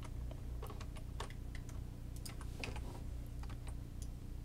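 Computer keyboard keystrokes clicking at an irregular pace, over a steady low hum.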